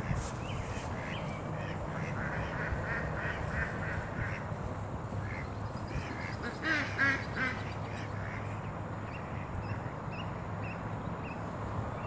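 Canada goose goslings peeping: quick runs of short, high chirps, loudest about seven seconds in, over a low steady hum.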